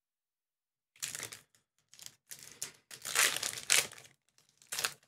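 A trading-card pack wrapper crinkling in irregular bursts as it is handled, starting about a second in.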